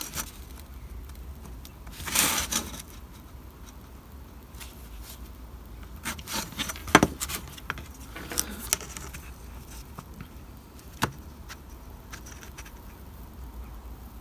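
Steel ruler and sheet of card being handled on a cutting mat: a brief scraping rub about two seconds in, a cluster of clicks and taps around the middle, and a single sharp tap later.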